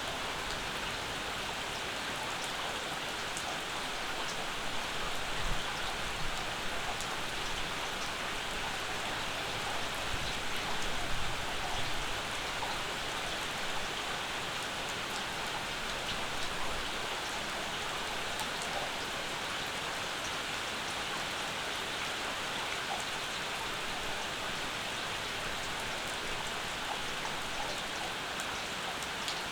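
Steady summer rain falling on and around a porch, a continuous hiss with scattered individual drops ticking, a little louder for a moment around 5, 11 and 16 seconds in.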